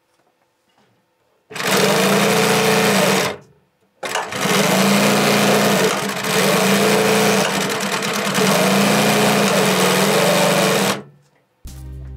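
Consew 226 industrial walking-foot sewing machine sewing, test-stitching after its bobbin case, tension assembly and walking feet were replaced. It makes a short run of about two seconds, stops briefly, then runs again for about seven seconds before stopping.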